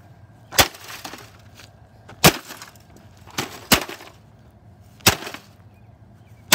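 A baseball bat smashing a broken flat-screen TV, about half a dozen separate hard blows cracking its plastic casing, one to two seconds apart with a quick double blow in the middle.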